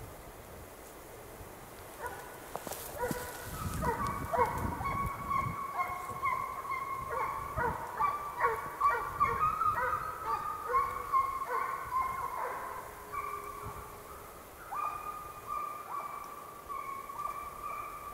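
Russian hounds baying on a hare's trail: several voices overlap in short and drawn-out cries. They start about two seconds in, are loudest through the middle, then thin out.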